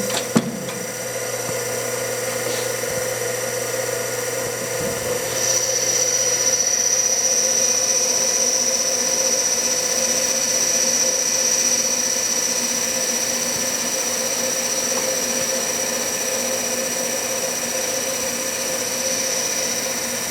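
Studer RM-250 universal cylindrical grinder running with its grinding wheel spinning: a steady machine hum and whine. A knock comes just after the start, and about five seconds in a second, higher whine joins and the machine gets a little louder.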